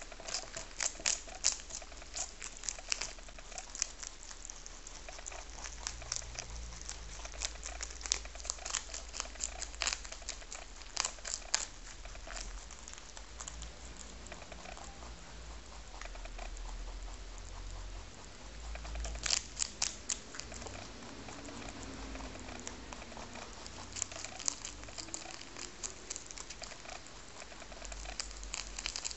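Two rabbits chewing and tearing a crisp savoy cabbage leaf: rapid crunching clicks in spells, easing off for a few seconds about halfway through while they sit up from the leaf.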